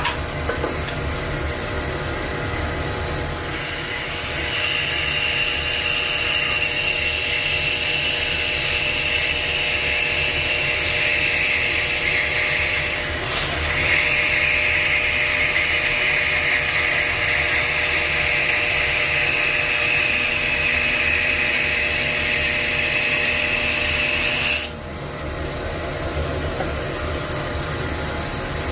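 Jet 18-inch 3 hp bandsaw with a 1/4-inch Timberwolf blade ripping curly maple into a thin panel. The motor runs steadily. About four seconds in, the blade bites into the wood with a high-pitched whine and hiss that go on, dipping briefly near the middle. The whine and hiss cut off suddenly about four seconds before the end, as the cut finishes and the saw runs free.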